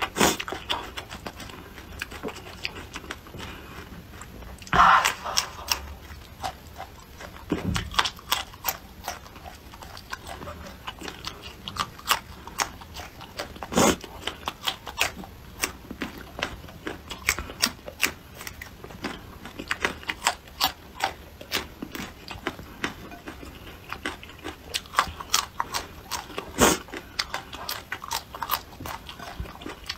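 Close-miked chewing and crunching of raw red chillies and shallots: a steady run of crisp crunches and wet mouth clicks, with a louder burst about five seconds in.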